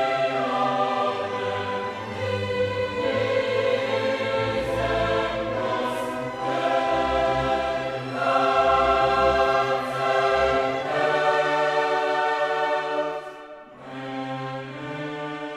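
Background music: choral and orchestral, with long held chords, dipping briefly near the end.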